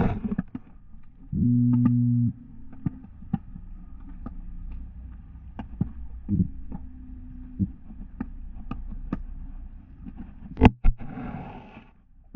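Muffled underwater audio from a GoPro in its housing dragged over a rocky bottom: irregular clicks and knocks as it bumps the rocks, with the loudest knock near the end. A loud, low steady hum sounds for about a second early on, and a fainter one comes again midway.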